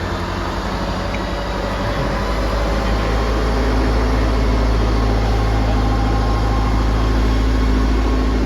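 Heavy vehicle engine running with a deep, steady rumble, getting louder about three seconds in.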